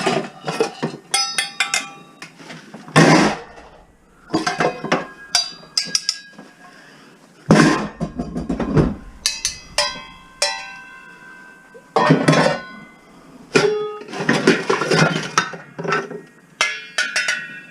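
Metal pots and pans being handled and knocked together: irregular clanks and clinks, some ringing on after the strike, between stretches of rummaging and scraping.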